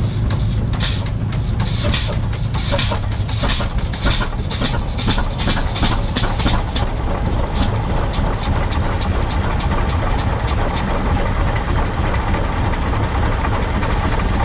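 Old tractor engine running with a steady low hum and a regular sharp clacking, about three clacks a second, that fades away about eleven seconds in.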